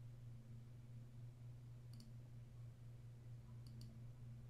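Two faint computer-mouse clicks, about two seconds in and again under two seconds later, over a low steady hum.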